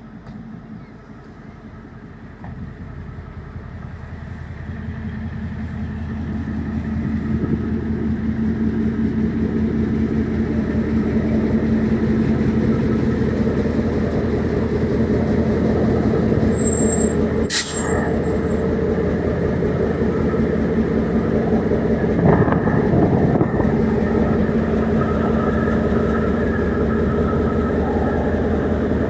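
Train engine running with a steady low hum, growing louder over the first ten seconds as it comes nearer, then holding steady; a single sharp click about eighteen seconds in.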